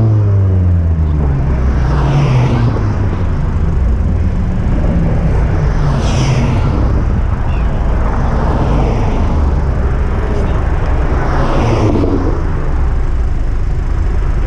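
Car engine note falling in pitch over the first second, then a steady low engine and road rumble with several brief swells of passing noise.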